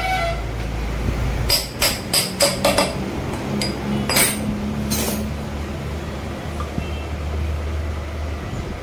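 About seven quick, sharp metal taps, then two more spaced about a second apart, from a steel pipe drift being worked on a bearing in a Royal Enfield Bullet's gearbox cover, with a steady low hum underneath.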